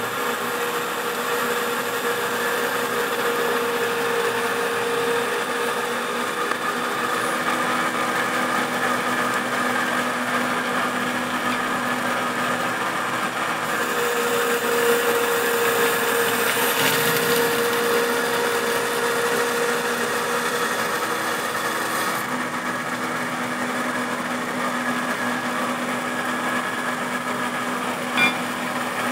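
Timesaver 960-1MW wet-type belt grinder running: a steady mechanical whir with a constant hum. A single sharp click comes near the end.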